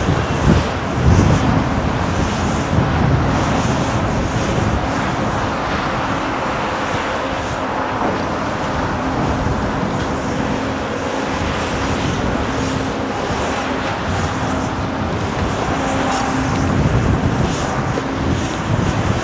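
A large Caterpillar hydraulic excavator's diesel engine running steadily under load while its bucket digs and scrapes through broken rock, with stones crunching and clattering, loudest about a second in and again near the end.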